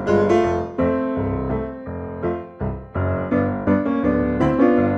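Background piano music: a quick succession of notes, each struck sharply and then fading.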